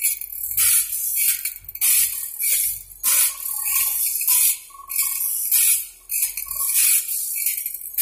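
Automatic band saw sharpening machine grinding a sawmill band saw blade tooth by tooth: the abrasive wheel rasps on the steel in a regular rhythm of about two grinding bursts a second as the blade is indexed forward.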